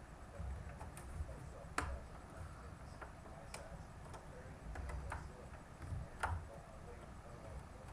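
Plastic clips of an Xbox 360 Slim casing being worked loose: several scattered sharp plastic clicks, a couple of them louder, over low handling knocks against the console shell.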